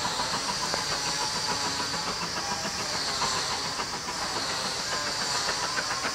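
Steam locomotive hauling its train away in the distance: a steady hiss of steam, with many faint clicks and ticks through it.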